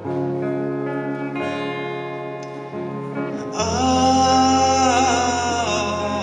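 Electric guitar picking single notes, then about three and a half seconds in a man's voice comes in over it, singing a long held note with vibrato.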